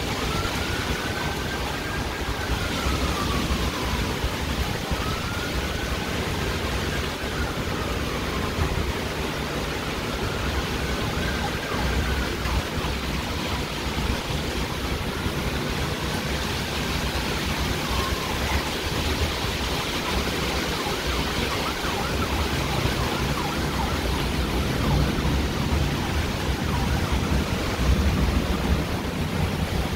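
Thunderstorm rain and gusting wind make a steady rushing noise. Through it a siren wails faintly, rising and falling about every three to four seconds, and fades out a little past halfway.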